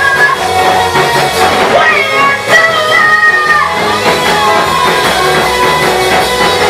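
Live praise and worship music: guitar and drum kit playing with held melody notes.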